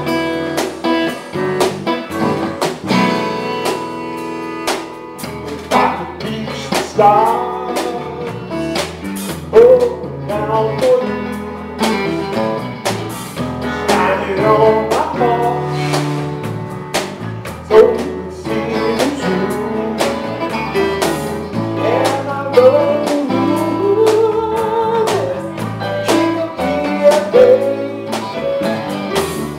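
Live band playing: drums and bass keep a steady beat under keyboards, while a lead line bends up and down in pitch over the top.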